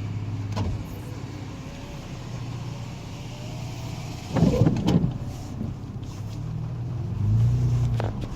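A car being driven slowly: a steady low engine hum with road noise, a brief louder clatter about four and a half seconds in, and the engine note rising and falling again near the end.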